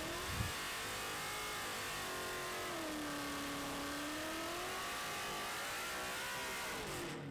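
Race car engine running at high revs, its pitch rising at first, dipping to a low in the middle and climbing again near the end.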